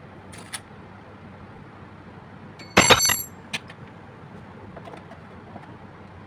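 A short, loud hiss with a high squeal about three seconds in as the vacuum brake-bleeder hose comes off the caliper's bleed nipple and its suction is released. A couple of small metal clicks from the spanner on the nipple come before and after it.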